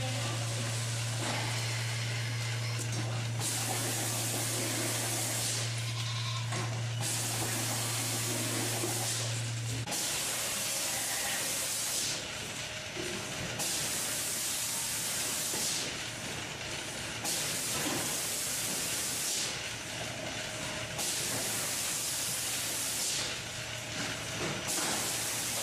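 Goat milking parlour machinery running: a steady low hum that stops about ten seconds in, and a hiss of air that rises and falls away every three to four seconds.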